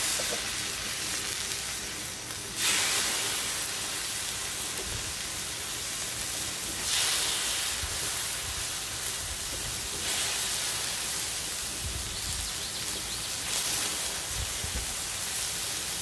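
Raw chicken breasts sizzling on a hot, avocado-oiled flat-top griddle. The sizzle surges sharply as new pieces are laid down, about three seconds in and again about seven seconds in.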